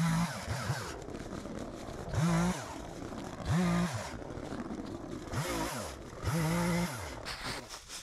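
Chainsaw revving in short bursts, about five times, rising in pitch as each burst starts and falling back between them, as it cuts small branches off a felled log.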